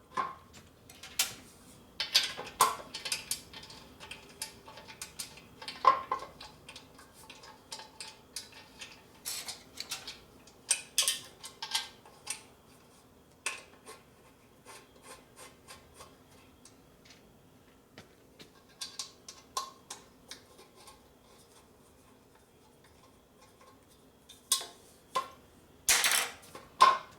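Scattered metallic clinks, taps and knocks as a gas tank is set back onto a motorcycle frame and worked on its mounts to check clearance, with longer quiet stretches between the handling noises.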